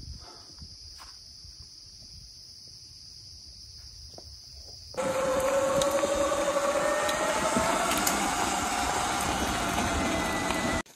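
A faint steady buzz of insects, then about five seconds in a Sur-Ron X electric dirt bike riding along a dirt trail: a loud rush of tyre and wind noise with an electric motor whine that rises slightly in pitch. It cuts off suddenly near the end.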